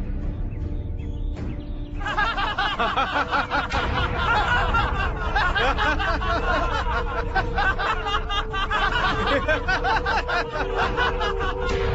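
A group of men laughing, breaking out about two seconds in, over background music with a held note.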